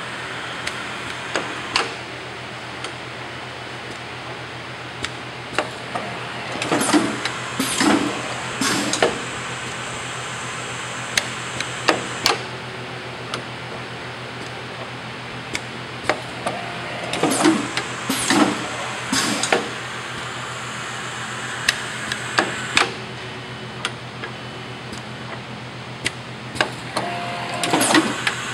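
HMI model 645 precision screen printer with its stack loader running through automatic print cycles. A steady machine hum runs under scattered clicks, and a cluster of louder mechanical clunks and strokes comes about every ten seconds, three times.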